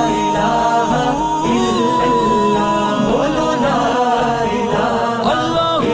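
Unaccompanied devotional naat singing in Punjabi: a voice sustaining long, ornamented notes that bend and waver over steady held vocal tones beneath.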